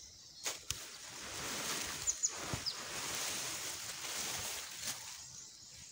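Outdoor rural ambience: a hissing rush that swells for a few seconds, with a few short, high bird chirps about two seconds in and a couple of light knocks.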